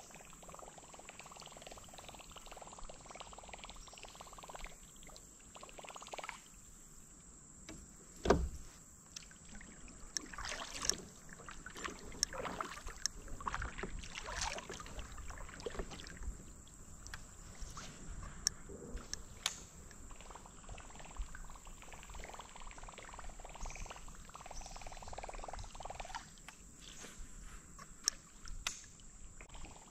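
Knocks, clicks and light water sounds of a fishing kayak and its gear on the water, with one sharp thump about eight seconds in, over a steady high-pitched drone.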